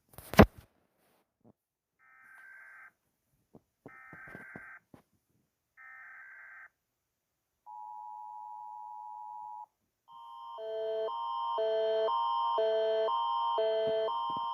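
Emergency Alert System alert tones: after a sharp click, three one-second bursts of data tones, then a steady two-tone attention signal for about two seconds. About ten seconds in, a pulsing chord of tones starts, alternating about twice a second.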